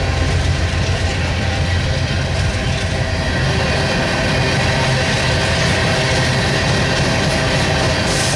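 BNSF freight train passing: diesel locomotives running and the cars rolling on the rails, a steady loud rumble.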